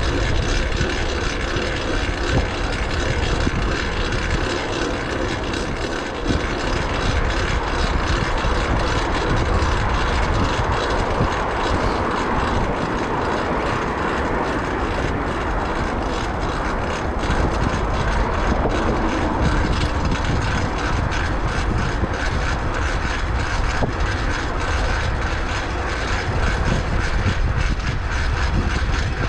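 Steady rush of wind over the microphone and tyre and road noise from a moving fixed-gear bicycle, with a deep rumble underneath and no sudden events.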